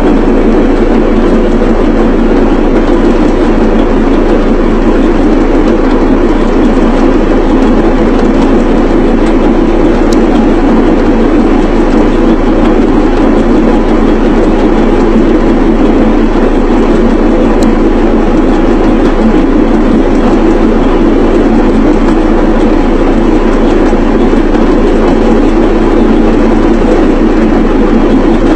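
Electric yam pounding machine running, a loud, steady machine noise with a constant low hum that does not change.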